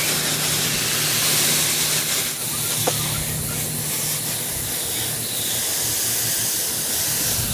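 Steady spray hissing from a nozzle while cleaning an air-conditioner condenser unit, cutting off suddenly near the end. A faint low hum runs underneath.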